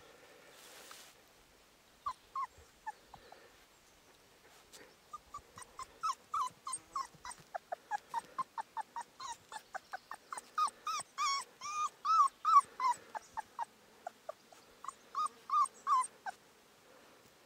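A month-old Cane Corso puppy whimpering: a few short high-pitched whines, then a rapid, unbroken string of them, about three or four a second for some ten seconds, loudest near the end before it stops.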